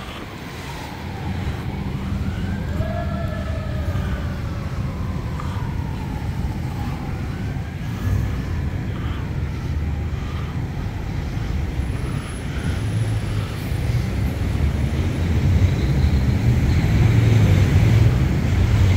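Fire engine siren wailing, its pitch slowly rising and falling, fading out about halfway through. A low rumble of street traffic runs underneath and grows louder near the end as cars pass.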